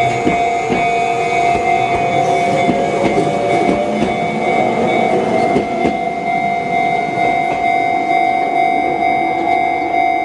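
Level-crossing electronic alarm bell with a Chichibu-type tone ringing steadily while a Jōmō Electric Railway 700-series train passes. A whine from the train rises in pitch over the first few seconds, and the wheels click over the rail joints.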